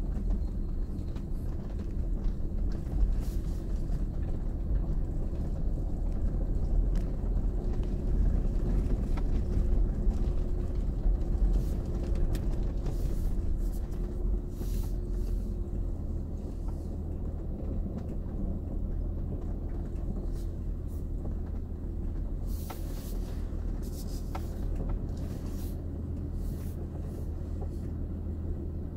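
Cabin noise of a 2018 Kia Mohave SUV creeping over a rough gravel and rock track: a steady low rumble of its V6 diesel engine and tyres. Scattered clicks and knocks from stones and the body jolting come thickest in two spells, in the middle and later on.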